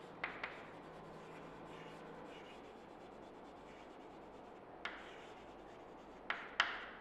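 Chalk writing on a chalkboard: faint scratching and rubbing, with a few short sharp taps as the chalk strikes the board.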